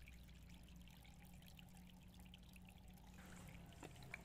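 Near silence: a faint steady trickle of water from the koi pond, over a low steady hum, with a small click near the end.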